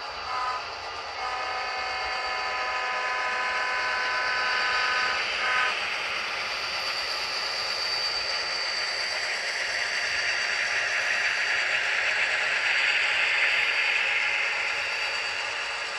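Sound-equipped model diesel locomotives: a multi-note horn gives a short blast, then a long one of about four seconds. After that the locomotives' engine sound grows louder as they pass close by, then eases near the end.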